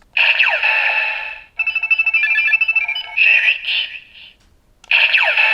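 Kamen Rider Hibiki Ridewatch toy playing its electronic sound effects: a sweeping chime, then a run of beeping tones, with the sweeping chime starting again near the end.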